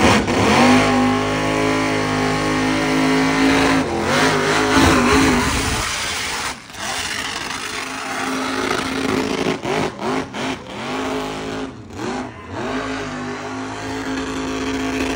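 Lifted pickup truck's engine doing a burnout with the tyres spinning. It revs up sharply at the start and holds high, near-steady revs for a few seconds. Then the revs rise and fall over and over, with several brief drops.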